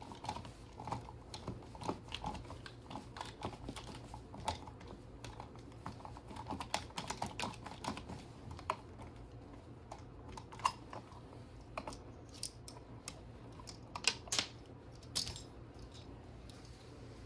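Irregular small clicks and taps of metal parts as the terminal screws on an old single-pole light switch are loosened, with a few sharper clicks in the second half.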